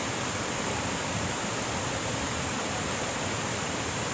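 Steady rush of cascading water, even and unbroken.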